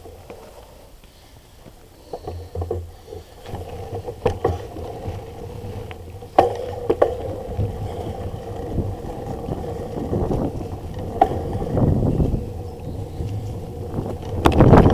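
Mountain bike rolling over a bumpy dirt trail: a steady rumble of tyres on dirt with sharp knocks and rattles from the bike over the bumps, growing louder through the second half. A loud rush of wind on the microphone sets in near the end as the bike picks up speed.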